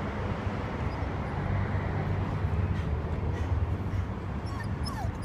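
Steady low outdoor rumble, with a Shiba Inu giving three or four short rising whines near the end.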